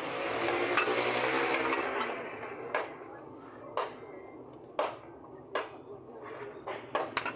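Damp moulding sand being shovelled and scraped into a steel casting flask, a gritty hiss for the first two seconds. After that come sharp taps about once a second as the sand is patted and packed down with hands and a flat plastic scoop.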